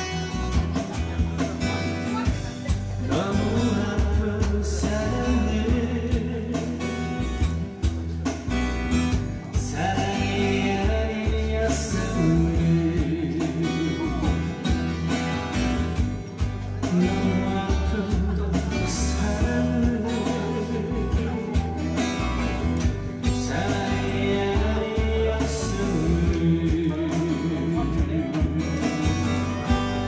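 A man singing into a microphone over guitar and backing music with a steady low beat. The voice comes in phrases with short instrumental gaps between them.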